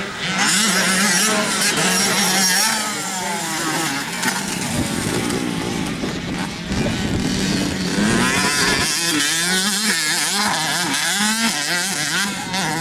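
Motocross dirt bikes' engines revving up and down on the track, several engine notes rising and falling over one another.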